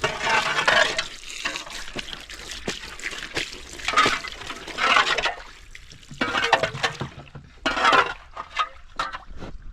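Water splashing and pouring in irregular bursts, about five surges, with small knocks in between, as water is handled by hand at a spring.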